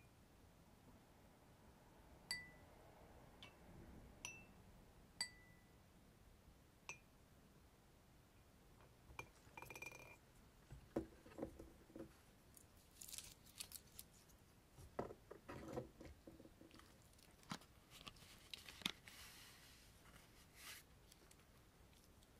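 Small hard objects on a desk being tapped and handled: a few sharp clinks with brief ringing tones over the first seven seconds, then bursts of scratching and rustling.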